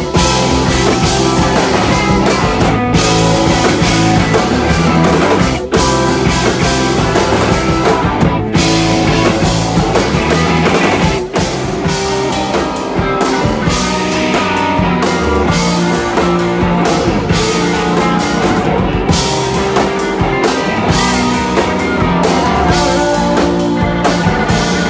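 Live rock band playing: electric guitars, bass guitar and drum kit, loud and dense, with two brief breaks about six and eleven seconds in.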